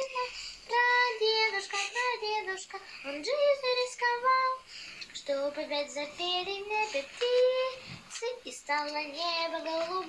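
A young girl singing a song, holding high sustained notes in short phrases.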